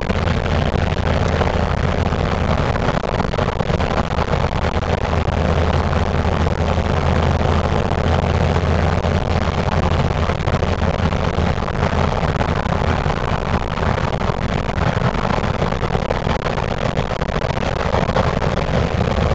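Steady engine drone and tyre and wind noise of a car cruising at road speed, heard from inside the moving car.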